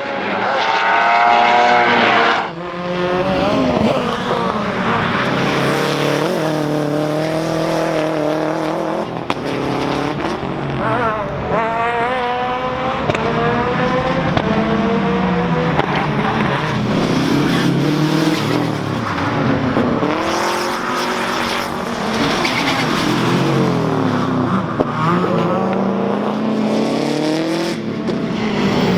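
Subaru Impreza 555 Group A rally car's turbocharged flat-four engine at racing speed, revving up and dropping back again and again through gear changes, with some tyre squeal and a few sharp cracks.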